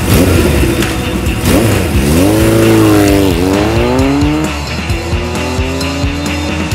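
A motor vehicle engine accelerating: its pitch climbs, drops sharply a little past the middle as if at a gear change, then climbs again. It sits over background music with a steady drum beat.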